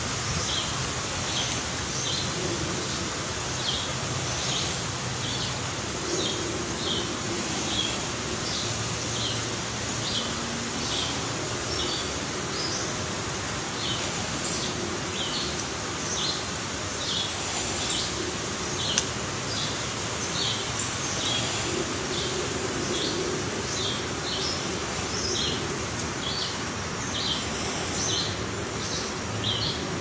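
Woodland ambience: a steady hiss with a short, high bird chirp repeated about once or twice a second throughout, and a few faint knocks.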